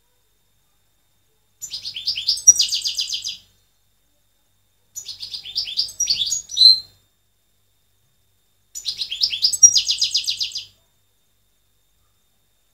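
European goldfinch singing: three short song phrases a couple of seconds apart, each a quick run of sharp, high chirping notes.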